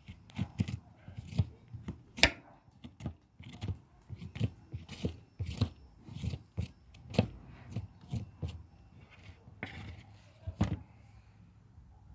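Nopal cactus pad being peeled: a run of short, sharp scraping strokes at irregular intervals, about two a second.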